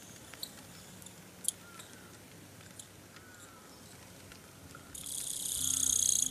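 Quiet outdoor ambience in light rain, with a few soft ticks and faint short chirps. About five seconds in, a high, insect-like buzz swells to become the loudest sound, then cuts off abruptly.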